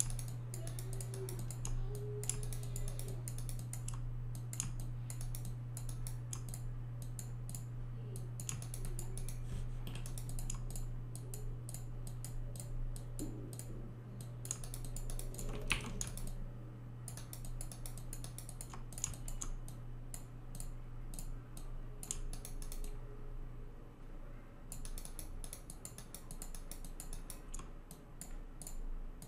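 Computer keyboard keys and mouse buttons clicking in irregular runs with short pauses, over a steady low electrical hum.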